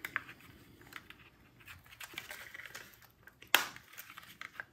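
Small plastic clicks and rustling as the plastic shell of an HO-scale Athearn Alco PA-1 model locomotive is handled and pressed back over its chassis and wiring, with one sharp click about three and a half seconds in.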